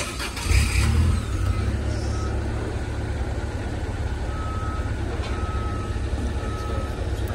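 A vehicle engine running with a steady low rumble, and a short high electronic beep repeating roughly once a second.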